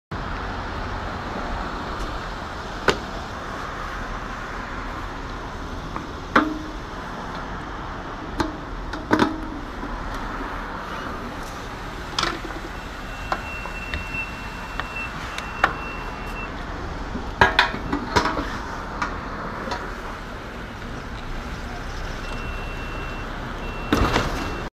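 Gas pump being handled: scattered sharp clicks and knocks of the fuel nozzle and pump over steady road-traffic background noise, with a high steady electronic tone sounding in short broken stretches twice.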